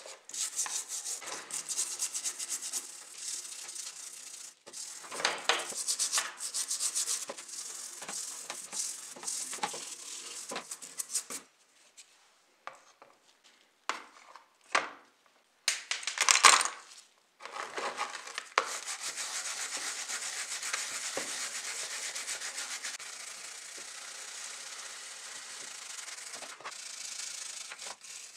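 A stiff-bristled brush scrubbing a rusty die-cast model car's body and chassis clean in foamy cleaning solution: rapid rasping strokes of bristles on metal. Around the middle the scrubbing stops and starts, with a few short sharp spikes, and it then runs steadily.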